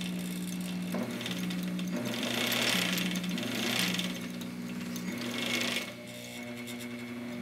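Small electric motor of a foot-pedal-controlled rod-wrapping lathe running, its hum stepping slightly up and down in speed as it spins a fishing rod blank that winds on wrapping thread. A brighter hiss rises from about two seconds in and fades near six seconds.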